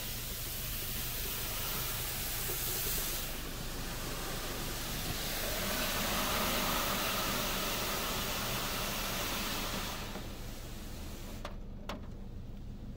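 D&S IQ soft-touch car wash spraying and brushing a car, heard from inside the car: a loud hiss of water and brushes on the glass and body over a steady low hum. The spraying is heaviest just past the middle and drops away about ten seconds in, followed by a couple of light clicks.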